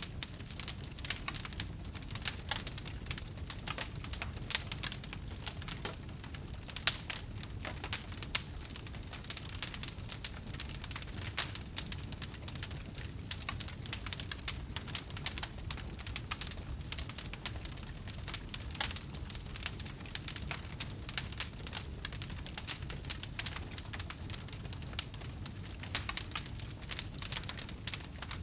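Wood fire burning with dense, irregular crackling and snapping pops over a low steady rumble.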